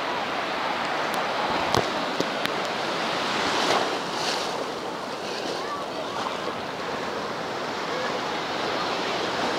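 Ocean surf: waves breaking and foamy water washing through the shallows in a steady rush that swells briefly about four seconds in.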